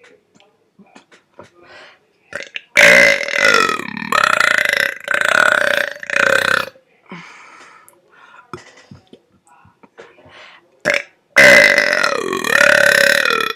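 A man burping: two long, powerful belches. The first starts about three seconds in and rolls on for about four seconds in a few pulses. The second starts near the end.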